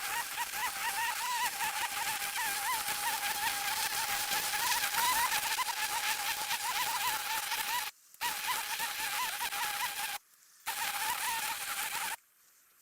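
Cordless brush cutter spinning its nylon trimmer line through grass, a steady high-pitched whine over a hiss, the pitch bobbing slightly as the line meets the grass. It is released twice for a moment, about eight and ten seconds in, and stops near the end.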